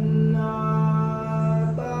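Buddhist temple music: the long hum of a temple bell, swelling and fading about twice a second, under a long held chanted note that changes pitch just before the end.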